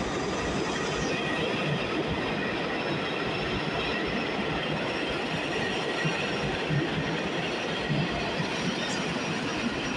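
Stainless-steel New York City subway train running past close by at speed: a steady rumble of steel wheels on rail, with irregular clacks over the rail joints.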